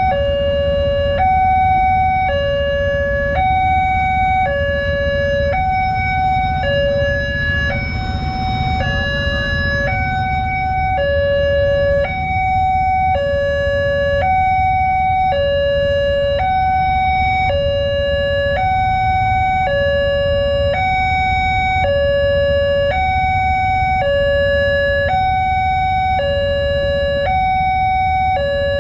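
Electronic railway level-crossing warning alarm sounding continuously, alternating between a low and a high note, each held a little over half a second. It signals that the crossing is closed for an approaching train. A steady low rumble of road traffic runs beneath it.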